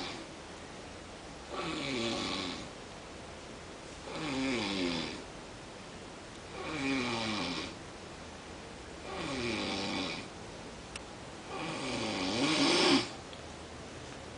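A man snoring in deep sleep, one long snore about every two and a half seconds, the last one the loudest.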